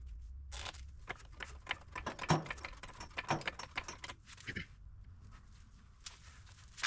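Light clicks and metallic clinks of hand tools and hardware while mounting a steering knuckle to an upper control arm, with a couple of louder knocks that ring briefly in the middle; the clicking thins out in the last couple of seconds.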